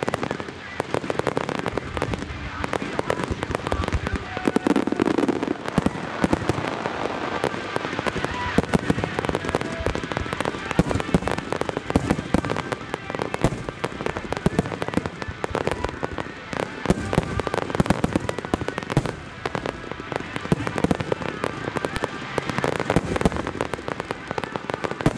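Marugo star mine fireworks in a finale barrage: many shells launching and bursting at once, a dense, unbroken run of bangs.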